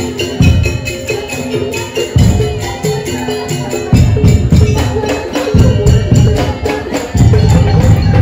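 Daul Madura percussion ensemble playing: heavy drums over fast jingling and woody beats and a repeating tuned melody, loud and driving.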